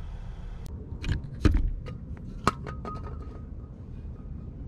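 A handful of sharp metal clicks and knocks from a brake rotor and caliper being handled and fitted onto a car's rear hub, the loudest about one and a half seconds in; one knock about halfway through leaves a short ring.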